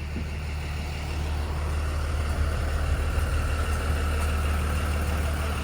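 A moving vehicle's steady low rumble, with a faint steady whine that comes in about two seconds in.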